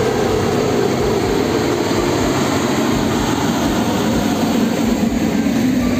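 Heavy container truck (a tractor unit hauling shipping containers) driving past, its engine and road noise loud and steady, with the pitch slowly falling.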